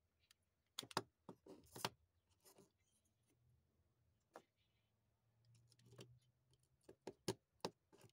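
Light plastic clicks and taps as small plastic micro RC car bodies are pulled off, set down on a wooden desk and pressed onto the chassis. There is a cluster of clicks about a second in, a single click in the middle and a quick run of clicks near the end.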